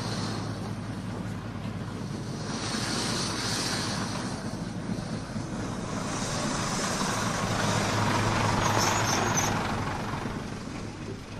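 Steady street traffic noise, a rumble with a hiss that swells and fades twice.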